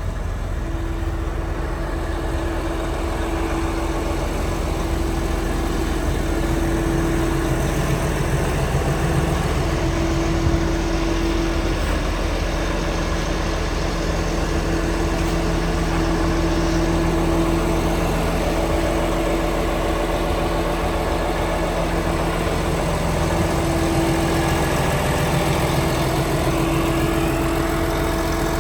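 Liebherr PR756 bulldozer's diesel engine running steadily at idle, with a humming tone that keeps cutting out and coming back.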